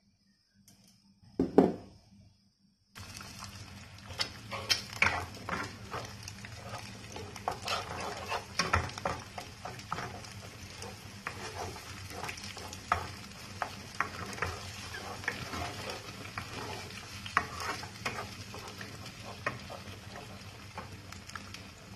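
Eggs frying in hot oil in a nonstick pan, a steady sizzle that starts suddenly about three seconds in, while a wooden spatula scrapes and taps the pan, scrambling them. Before the sizzle, about a second and a half in, a single knock.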